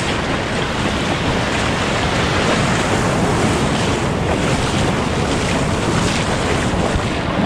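Ocean surf breaking and washing in, with wind buffeting the microphone.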